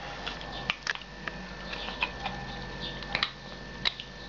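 Scattered light clicks and taps of plastic parts as a Moser 1871 ChromStyle hair clipper's opened housing is handled and its motor and battery assembly is worked out by hand.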